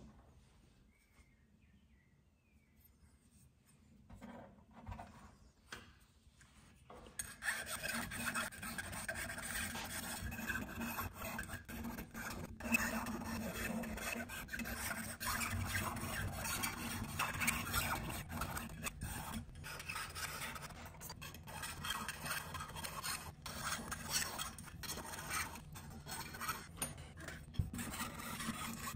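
A small hand file rasping across the edge and inner surface of a silver-and-copper mokume gane napkin ring. After a quiet start with a few faint strokes, steady rapid filing begins about seven seconds in and keeps going.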